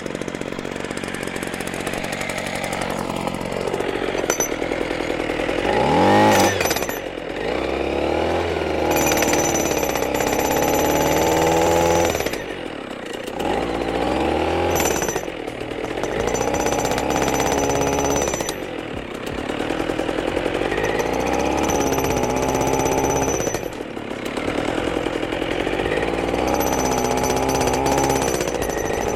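Atlas Copco Cobra Pro two-stroke petrol breaker running, its engine revved up and let back down several times, with a rising whine about six seconds in.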